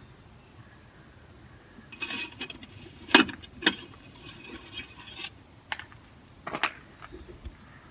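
Clattering knocks, clicks and scrapes of hard plastic and metal from handling an oil bottle, a plastic funnel and the dipstick at an engine oil filler. There is a scraping run from about two seconds in, with two sharp knocks around three seconds, then a few single clicks.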